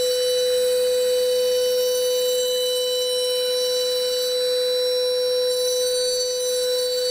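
Steady machine whine, one strong middle tone with fainter high tones above it, unchanging, typical of a CNC machine's spindle running.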